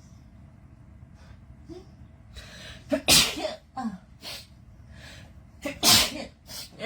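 A person sneezing twice, set off by a nasal swab in the nose. Each sneeze is a sharp burst after a quick in-breath; the first comes about three seconds in and the second about three seconds later.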